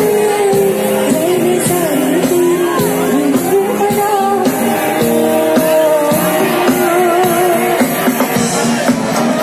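Amplified live band music with a sung melody, played loud through a stage PA and heard from within the audience.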